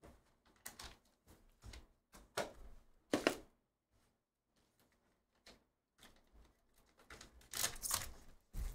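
Short scattered rustles and taps as a trading-card box is opened and a pack is lifted out. Then a foil card wrapper is torn open and crinkled, loudest near the end.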